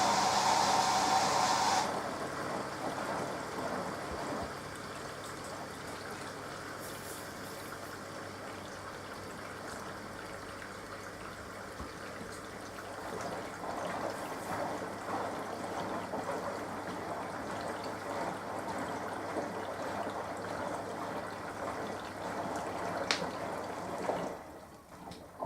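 Hoover AXI washing machine working through its wash cycle. A loud hissing hum cuts off about two seconds in, then water gurgles and trickles through the machine. The sound drops away briefly near the end.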